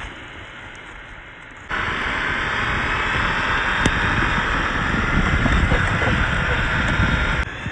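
Traxxas TRX-4 RC crawler driving off-road: electric motor and gearbox whine mixed with tyres crunching over rough ground. It starts quieter, jumps abruptly louder about two seconds in, and drops abruptly again near the end.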